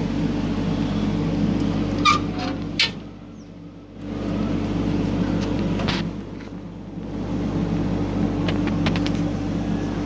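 Komatsu D21P-7 bulldozer's diesel engine running at a steady idle, with a few sharp clicks about two, three and six seconds in. The engine sound dips briefly twice.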